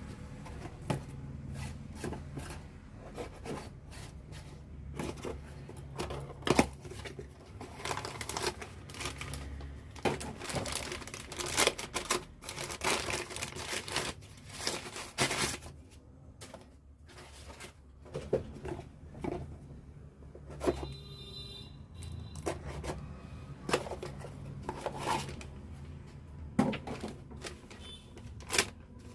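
Irregular metallic clinks, taps and scrapes of starter-motor parts and hand tools being handled as an auto-rickshaw self-starter is worked on, over a steady low hum.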